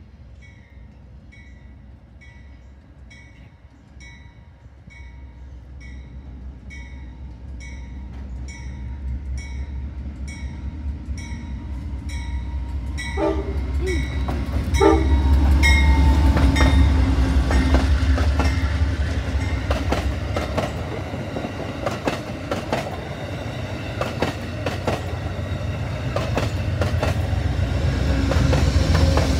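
Amtrak passenger train with a GE Genesis diesel locomotive approaching and passing. A bell dings steadily about once every 0.7 s while the diesel rumble builds. About 13 seconds in, a horn sounds as the locomotive runs by loudly, and then the passenger cars roll past with clickety-clack wheel noise.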